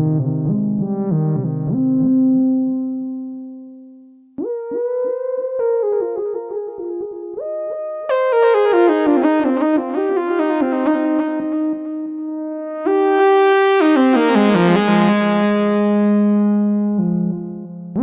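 Sequential Trigon 6 analog polyphonic synthesizer playing its 'All The Rave' preset: pulsing chords of quickly repeated notes that fade out about four seconds in. A new phrase starts with a rising pitch slide and grows brighter, the tone opening up sharply in the last few seconds.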